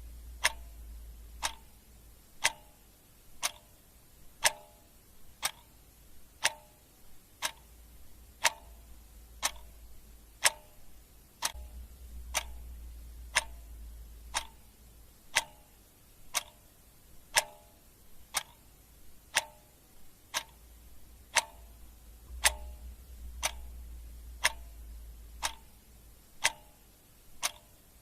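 Clock ticking steadily, about two ticks a second, alternating louder and softer in a tick-tock rhythm. A faint low hum comes and goes underneath.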